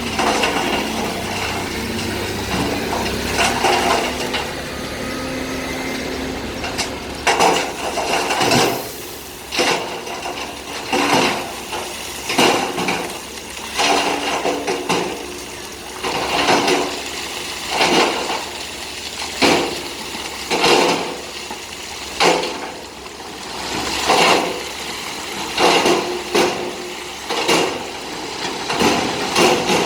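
Load of stone clattering and rushing out of a tipping dump truck bed over a diesel engine's low running hum. From about seven seconds in, the stone comes in repeated clattering surges, one every second or so.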